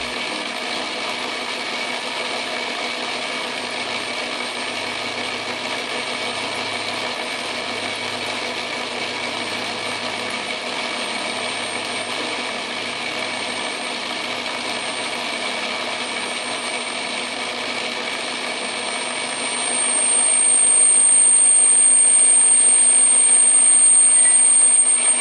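Atlas metal lathe running under a heavy turning cut on a steel tube: a steady whine of motor and gears with a cutting hiss. About halfway in, a thin, high-pitched squeal starts to come through. For the last five seconds it grows much louder and becomes the loudest sound.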